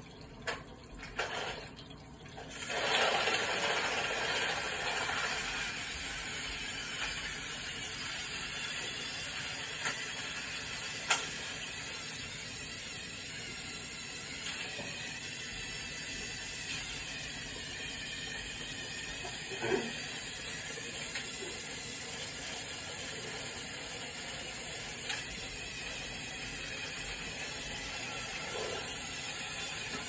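Microwave oven running with tinfoil inside sparking and burning, heard through computer speakers: a steady hiss with a few sharp pops.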